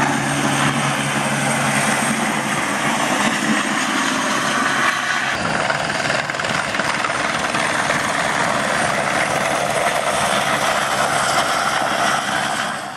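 Helicopter flying low past, with steady loud rotor and engine noise. About five seconds in its low hum drops away, leaving a broad rushing sound.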